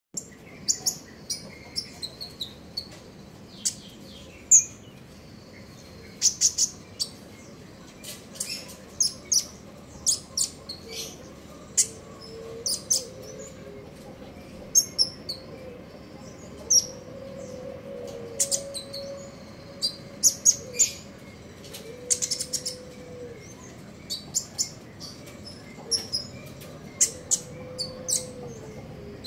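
Kolibri ninja sunbird calling: quick, sharp, high chirps and short twittering runs at irregular intervals. Several times in the background there is a faint low, drawn-out tone.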